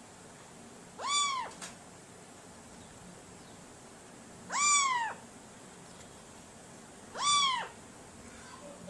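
Domestic cat meowing three times, a few seconds apart, each meow about half a second long and rising then falling in pitch.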